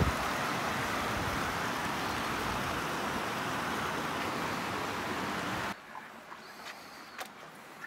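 Steady rushing outdoor noise that cuts off abruptly about six seconds in, leaving a much quieter background with a few faint clicks.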